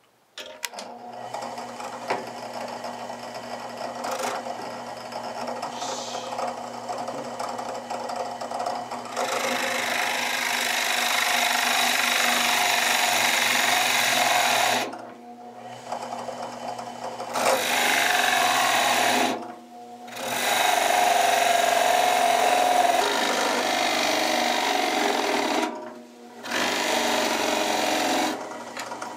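Drill press running, its wide two-winged bit boring into the wood of a ladle bowl: a steady motor hum under a grinding cutting noise that grows louder about nine seconds in. The sound stops briefly three times.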